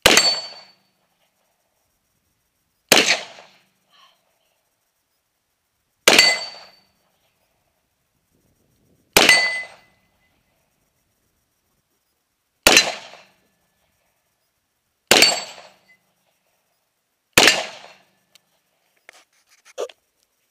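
Seven AR-15 rifle shots, one every two and a half to three and a half seconds, each followed by the short ring of a steel target being hit. A few faint handling clicks near the end.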